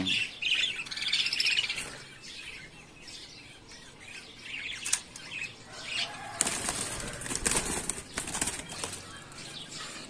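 Budgerigar wings flapping in a fast flutter from about six and a half seconds in, the loudest sound here, with a few budgie chirps in the first couple of seconds.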